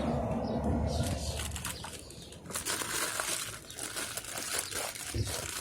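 Rustling and light clicking handling noises close to the phone's microphone, uneven throughout, with a denser patch of rustling in the middle.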